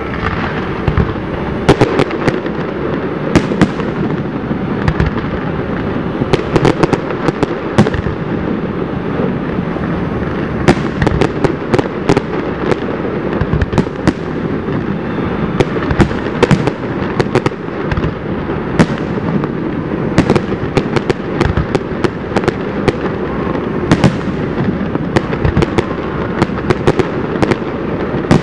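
Aerial fireworks display: many shells bursting in quick succession, with sharp bangs every second or so over a continuous dense rumble of overlapping bursts.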